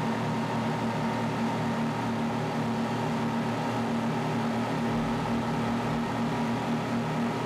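Boat engine running steadily at a constant pitch, a loud even hum with no change in speed.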